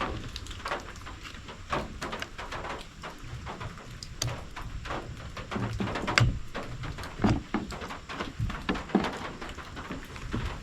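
Irregular clicks, taps and knocks of hand-work on a Stihl FS45C line trimmer as its replacement carburetor is fitted: small parts and tools handled against the plastic and metal of the engine.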